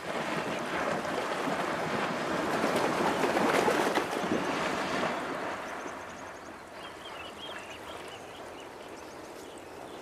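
Hippos splashing through shallow river water as they run in, a steady noise of churned water that dies down after about five seconds to a quieter wash.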